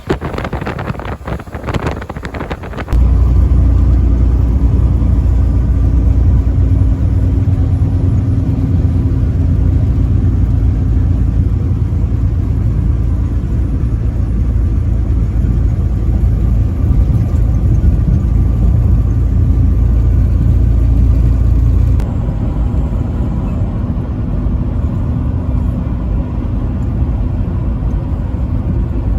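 Truck on the road: wind buffeting the microphone for about the first three seconds, then a sudden, loud, steady low rumble of engine and road noise, easing slightly about twenty-two seconds in.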